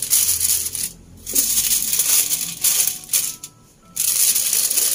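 Aluminium foil crinkling and rustling as it is folded by hand into a parcel around a fish. It stops briefly about a second in and again near the end.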